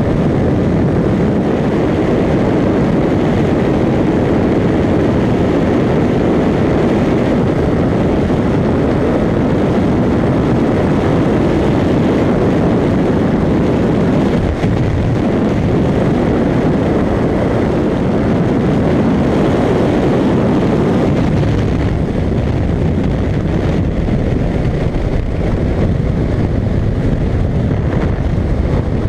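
Kawasaki Ninja 650 parallel-twin sport bike cruising at highway speed: a steady rush of wind on the microphone blended with the engine's even drone, holding the same level throughout.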